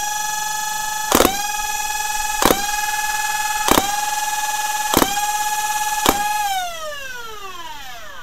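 Lepus mini flywheel blaster, its 3D-printed shell driving Merlin 130-size flywheel motors, spun up with a steady high whine. Five sharp shots fire about 1.2 s apart: light trigger pulls, each usually putting out a short burst of about three darts, and the whine sags briefly after each shot as the darts pass through the flywheels. Near the end the trigger is released and the flywheels spin down, the whine falling steadily in pitch.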